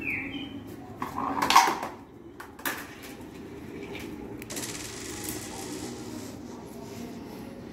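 A marble dropping and rattling down through the tubes and plastic bottle of a homemade chain-reaction machine, loudest about a second and a half in, then a sharp click. After that comes a quieter, steady rattle as it rolls along a toy track and knocks over a row of standing playing cards.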